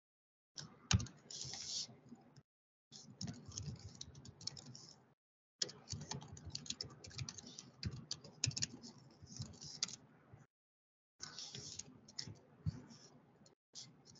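Computer keyboard typing: rapid runs of keystrokes in several bursts, with short breaks between them.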